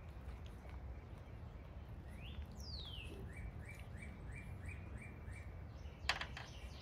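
A songbird singing: a high whistled note sliding down, followed by a run of about seven short repeated notes at roughly three a second, over a steady low outdoor rumble. A sharp click sounds near the end.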